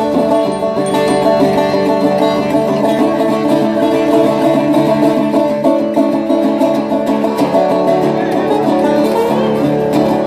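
Live music on a plucked string instrument, rapidly picked notes over sustained chords, played without pause.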